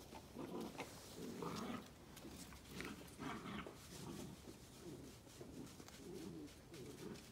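Eight-week-old yellow Labrador puppy making a run of short, low vocal sounds, about two a second.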